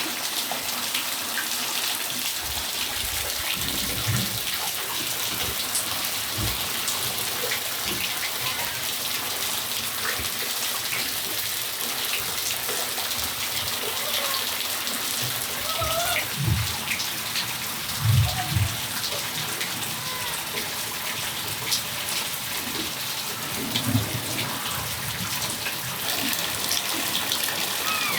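Steady rain falling on a patio, an even hiss, with low thuds several times and a few faint short chirps over it.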